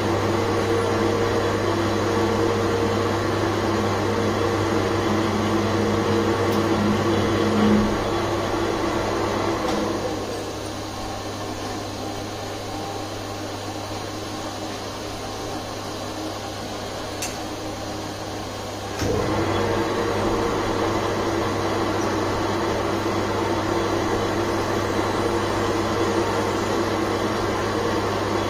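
Manual metal lathe running: a steady motor and gear hum while it turns a steel bar. About ten seconds in it drops to a quieter low hum for about nine seconds, then comes back to full level abruptly.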